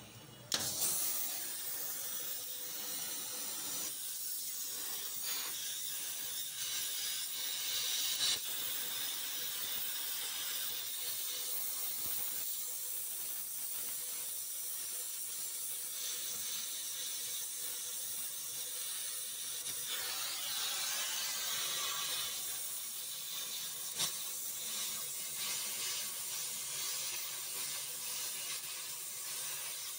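Gas welding torch flame hissing steadily, starting abruptly about half a second in, as it welds the car's broken exhaust silencer mount.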